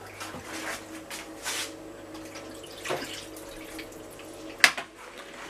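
Water being poured from a glass into a frying pan of oil and fried chopped garlic, trickling and dripping, with a few light knocks and a sharper knock near the end.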